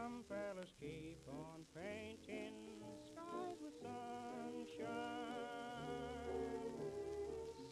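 Background music: a melody with gliding, bending notes over sustained low notes.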